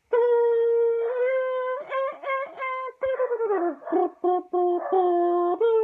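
A person's voice making a wordless tune with the mouth, in a high, horn-like tone. It holds long notes, breaks into a run of short notes, and slides down in pitch about three seconds in.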